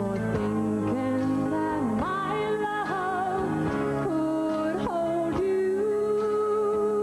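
A woman singing a slow country ballad over band accompaniment, sliding between notes and then holding one long note near the end.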